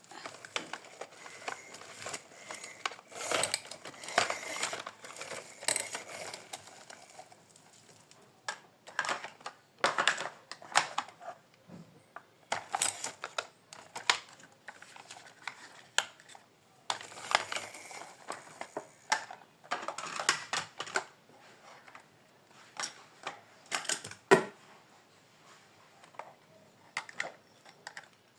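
Toy JCB excavator being handled: small hard plastic and metal parts click, rattle and clatter in irregular flurries, with short pauses between, and one sharper knock near the end.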